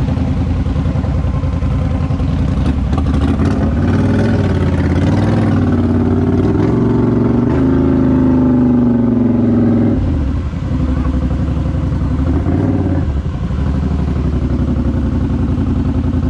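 Polaris Sportsman 850 High Lifter ATV engine running under throttle. The revs climb steadily for several seconds, drop off sharply about ten seconds in, then pick up again in a short burst a few seconds later.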